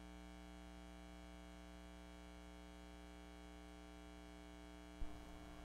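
Near silence over a steady electrical hum with several even tones. About five seconds in there is a single sudden low thump, followed by faint rustling.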